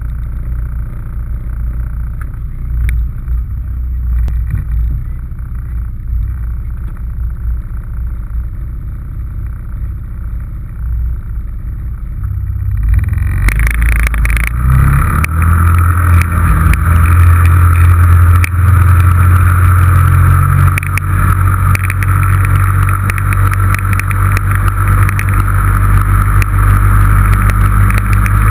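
2006 Yamaha Rhino 660's single-cylinder four-stroke engine running at a steady low idle, picked up by a hood-mounted camera. About thirteen seconds in it revs up and gets much louder as the vehicle pulls away, then holds a steady drone while driving.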